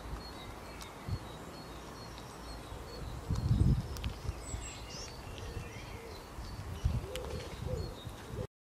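Outdoor ambience with small birds chirping, including a short high note repeated about twice a second. Low rumbles come about three and a half seconds in and again near seven seconds.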